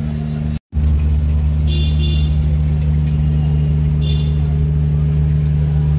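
Motorcycle engine running at a steady speed, a constant low drone, after a brief dropout about half a second in. A few short high-pitched tones sound over it about two seconds in and again about four seconds in.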